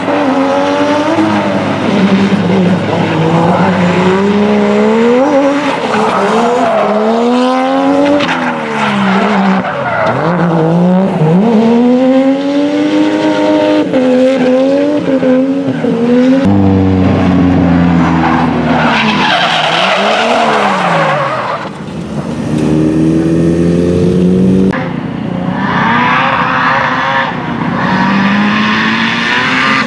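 Drift car sliding at full lock: its engine revs hard up and down through the drift, with tyre squeal and skidding that grow loudest about two-thirds of the way in and again near the end.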